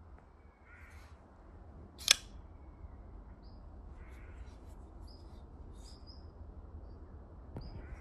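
A single sharp click about two seconds in: the blade of a Primordial MK3 folding knife snapping open. Faint bird calls, including a crow cawing, and a low background rumble around it.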